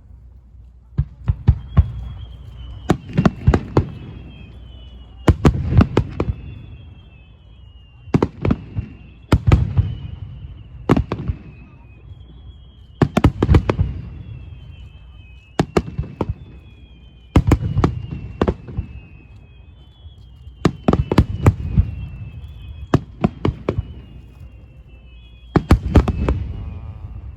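Starmine fireworks barrage: shells bursting in quick clusters of loud bangs about every two seconds. Whistling tones slide down in pitch between the bursts.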